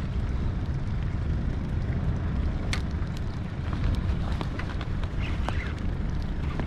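Wind buffeting an action camera's microphone, a steady low rumble, with a few faint ticks scattered through it.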